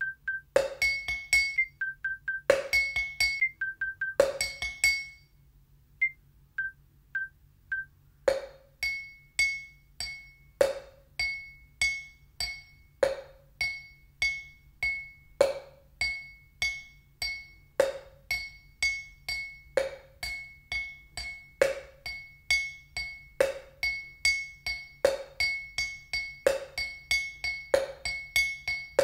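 Wooden sticks drumming a repeated rhythm on kitchen containers: clinks on a drinking glass that ring on, and duller knocks on a plastic box. The playing stops about five seconds in, four faint beeps count back in, and the pattern then repeats, gradually speeding up.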